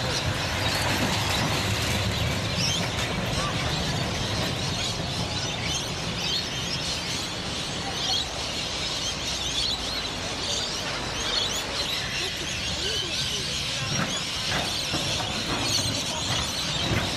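Busy street ambience: a steady traffic rumble with trams running past, under many birds chirping.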